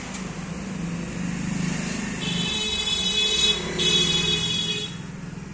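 A motor vehicle running, with two long high-pitched tones a little past the middle, the first about a second and a half long and the second about a second.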